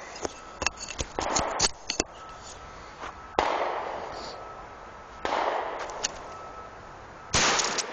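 Two shotgun shots, the first a little over three seconds in and the second about two seconds later, each trailing off in a long echo. Scattered clicks come before them.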